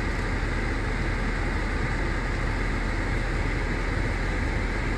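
Steady, even hiss with a low hum inside a car's cabin, the sound of the car's ventilation fan and running engine.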